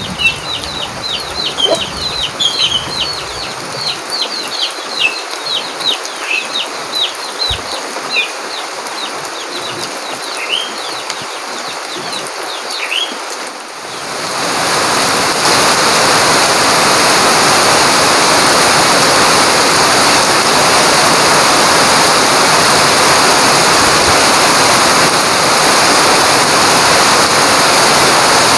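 Chicks peeping in rapid high chirps, each sliding downward, over a steady hiss of rain. About halfway through, the sound cuts to a louder, even hiss of heavy rain.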